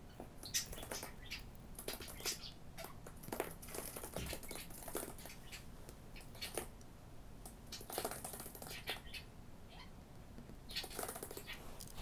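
Budgie (parakeet) moving about a cardboard box against acrylic: irregular scratchy clicks and taps of claws and beak, with light rustling.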